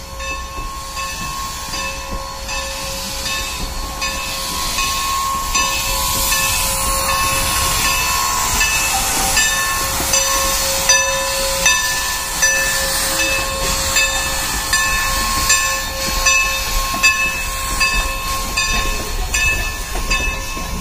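Norfolk & Western No. 475, a 4-8-0 steam locomotive, moving slowly past with its train, with a steady hiss of steam. A steady whine fades out about two-thirds of the way through. From about five seconds in there is a regular beat of sharp ticks, a little more than one a second.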